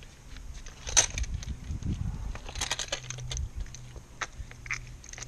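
Clicks, knocks and rattles of an Inno roof-rack kayak lifter bar being handled, with a sharp knock about a second in and a cluster of clicks near the middle, over a low steady hum.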